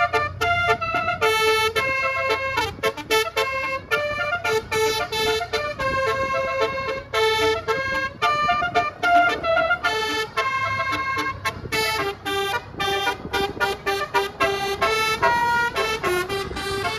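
Bus 'basuri' telolet horn playing a fast melody of short, choppy 'dut dut' tooting notes that jump in pitch from one note to the next, over a low engine hum.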